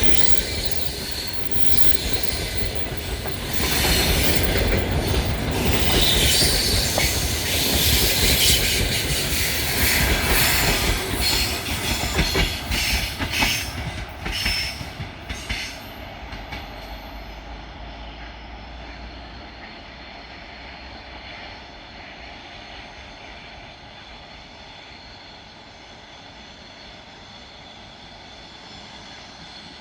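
Passenger train coaches rolling past, wheels clicking over rail joints and squealing on the curve. After about sixteen seconds the train moves off and the sound fades to a steady distant rumble.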